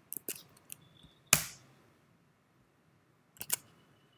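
Computer keyboard clicks: several quick light taps in the first second, one louder key strike about a second and a half in, then two more taps past the three-second mark.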